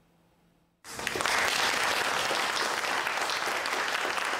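Applause from a group of people clapping, starting abruptly about a second in after near silence.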